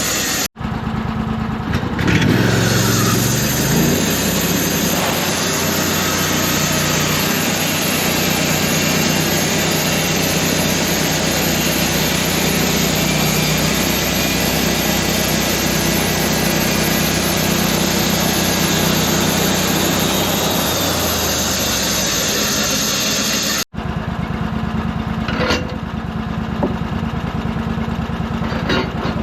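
An engine running steadily, rising in pitch about two seconds in. The sound drops out abruptly twice, near the start and about 24 seconds in.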